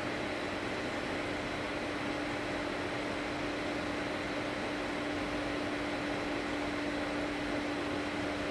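Steady mechanical hum: one constant mid-low tone over an even hiss, with no change in level.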